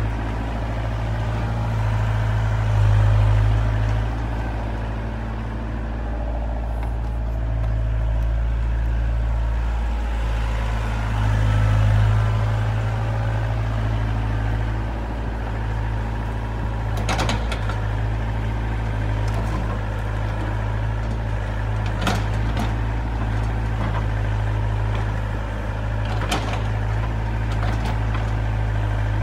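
Doosan 60-7 mini excavator's diesel engine running steadily under hydraulic load while it digs soil, swelling in level a couple of times as the arm works. A few sharp clanks from the bucket and linkage come in the second half.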